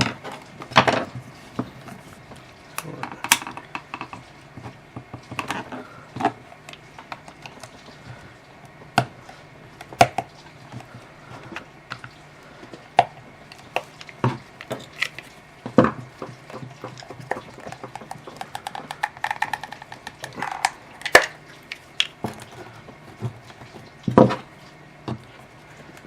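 A tool clicking, knocking and scraping against the plastic case of a power adapter as it is pried open: irregular sharp clicks and taps with scraping in between, the housing resisting.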